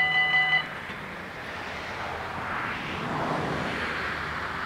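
Level crossing warning bells ringing rapidly, then stopping about half a second in as the barriers finish lowering. After that a soft rushing noise swells and fades.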